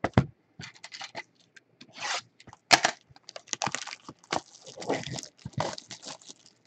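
Wrapping and cardboard of a sealed trading-card hobby box being torn, crinkled and scraped as the box is opened, a run of irregular crackles and sharp clicks with the sharpest snap a little under three seconds in.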